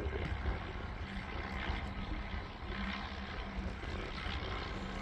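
A distant engine drones steadily, its hum coming and going faintly, under a low rumble of wind on the microphone.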